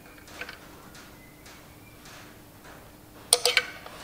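Light metal ticks, then a quick cluster of sharp metallic clicks about three seconds in, from hand-adjusting a release-finger adjuster on a Massey Ferguson 135 dual clutch assembly. A faint steady hum sits underneath.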